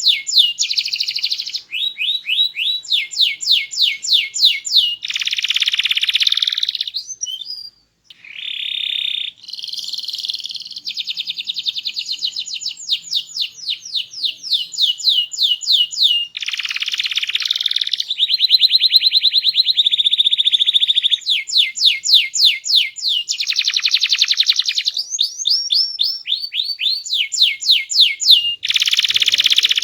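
Domestic canary singing a loud, varied song of fast trills and rolls, switching to a new phrase every second or two, with a brief pause about eight seconds in.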